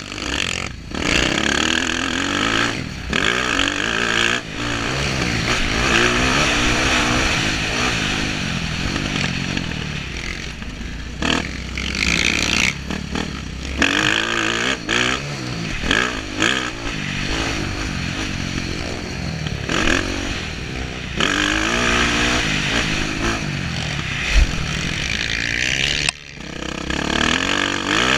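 Motocross dirt bike engine revving hard, its pitch climbing and falling again and again through gear changes, with several short drops where the throttle is shut off for corners.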